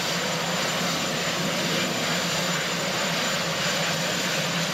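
Marine One, a Sikorsky VH-3D Sea King helicopter, running steadily on the lawn with its turbine engines and rotor going: an even rushing noise over a low hum.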